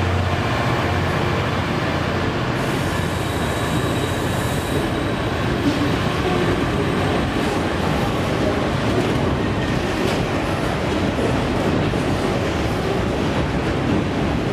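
DB Schenker Class 66 diesel-electric freight locomotive passing close by, its two-stroke V12 diesel engine loudest in the first second or so. A long train of bogie hopper wagons then rolls past with a steady rumble of wheels on rail and occasional faint clicks.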